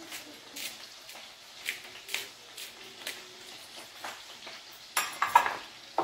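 Small twist pepper grinder cracking five-berry peppercorns over a bowl, a faint crunching click about twice a second. About five seconds in comes a short, louder clatter of containers set down on the wooden board.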